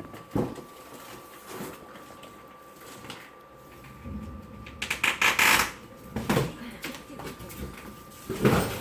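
Cardboard and plastic packaging being handled as bike parts are unpacked: scattered knocks and rustles, with a longer, louder rustling about five seconds in and another near the end.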